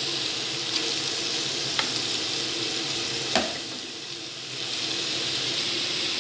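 Sliced mushrooms with onion, tomato and garlic sizzling steadily in a frying pan, with a few light clicks and one louder knock about three and a half seconds in. The sizzle drops off briefly about four seconds in, then comes back.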